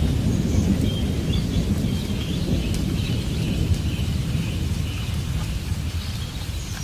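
Rolling thunder rumbling over steady rain, the rumble slowly fading toward the end.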